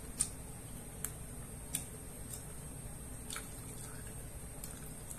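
Quiet eating at the table: about half a dozen soft, irregularly spaced clicks and ticks, from chewing or utensils, over a low steady room hum.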